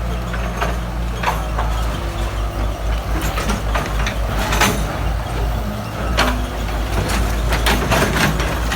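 Backhoe engine running steadily with a low rumble, with scattered sharp knocks and clanks through it, several close together near the end.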